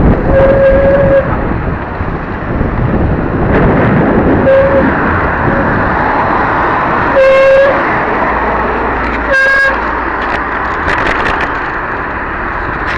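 Wind and road noise rushing over a camera on a moving bicycle in rain, broken four times by a short horn-like toot of one fixed pitch, the third the loudest and longest.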